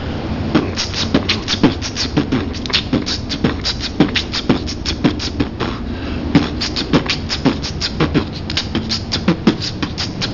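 Human beatboxing: a steady, fast rhythm of mouth-made percussion, with sharp hissing snare and hi-hat sounds over low, dropping kick-drum thumps.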